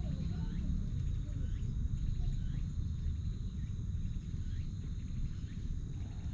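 Outdoor ambience: a steady low rumble with a steady high thin tone, and faint short falling chirps repeating about once a second.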